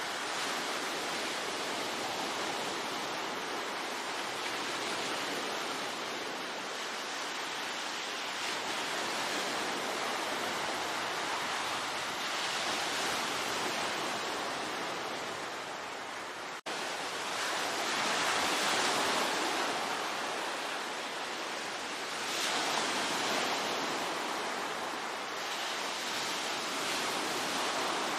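Ocean waves surging and washing ashore, a continuous surf hiss that swells louder every few seconds, with a momentary dropout about two-thirds of the way through.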